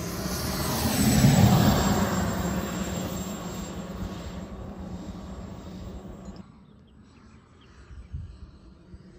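Model jet's turbine engine whining and hissing as the jet rolls past on the runway, loudest about a second in and then fading as it moves away. About six and a half seconds in the sound drops abruptly to a much quieter background, with a brief thump near the end.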